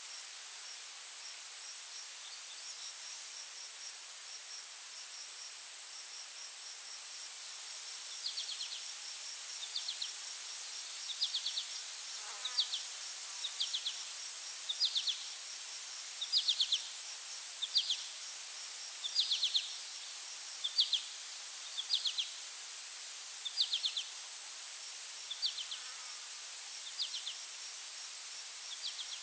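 Insect chorus: a steady high-pitched drone with a fast faint ticking under it. From about eight seconds in, a cricket-like chirping joins, short trills repeated roughly once a second.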